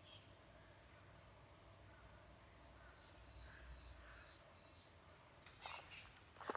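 Near silence with faint, distant birdsong: a run of about five short high chirps in the middle, and a few fainter, higher notes scattered through.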